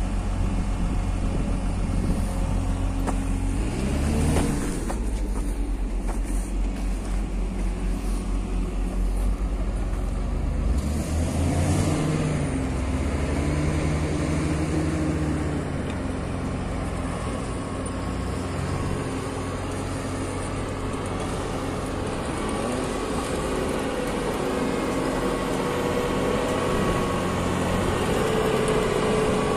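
Heavy diesel engines of earthmoving machines running: a Komatsu GD675 motor grader working up a dirt slope, with a Hyundai HL757-7A wheel loader close by. The engine revs rise about four seconds in and again around eleven seconds, after which the low rumble eases.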